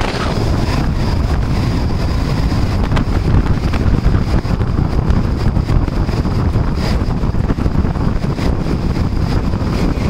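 Strong wind buffeting the camera microphone: a loud, gusty low rumble that rises and falls throughout.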